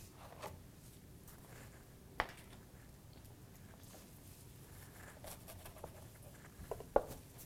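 Chef's knife knocking on a plastic cutting board as a bunch of fresh cilantro is chopped: a few scattered knocks, one sharp one about two seconds in and a cluster near the end.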